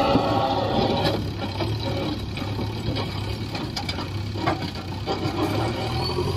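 Diesel engine of heavy machinery running steadily, with a few short sharp knocks.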